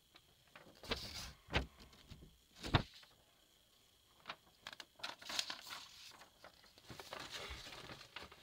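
Close handling noises: rustling, with a few sharp knocks about one, one and a half and nearly three seconds in.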